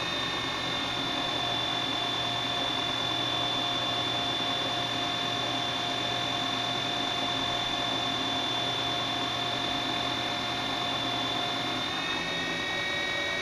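2x72-inch belt grinder running with a steady whine while a plasma-cut steel bar is pushed along the fence and its edge ground against the belt over the 10-inch contact wheel.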